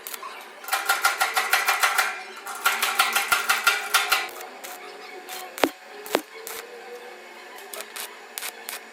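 Rapid metallic tapping on ringing steel, about ten strikes a second, in two bursts of roughly a second and a half each, followed by two single sharp knocks.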